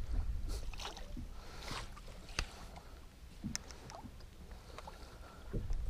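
Small-boat water sounds: water lapping and splashing around the hull and a bait splashing at the surface as it is reeled in, under a low rumble. A few sharp light clicks are scattered through.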